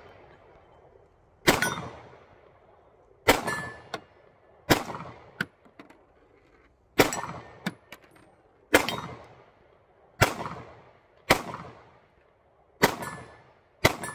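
A Sig P320 9mm pistol fired nine times at an unhurried pace, about one shot every one to two seconds. Several shots are followed a moment later by the clang of a bullet striking a steel target.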